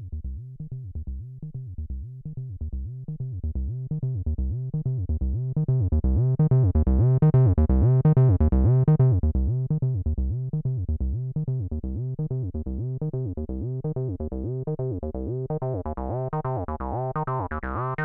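Cyclone Analogic TT-303 Bass Bot V2, a Roland TB-303 clone, playing a fast repeating sequenced bass line while its filter cutoff and resonance are turned. The tone opens up brighter around the middle, dulls again, then grows sharper and more resonant near the end.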